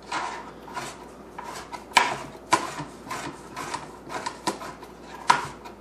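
Chef's knife rough-chopping dill pickles on a plastic cutting board: a steady run of knocks, about three a second, as the blade strikes the board.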